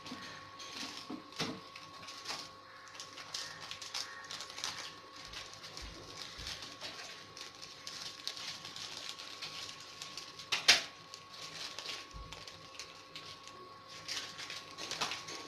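Egg omelette frying in oil in a pan, a steady irregular crackle and spatter, with one sharp click about ten and a half seconds in.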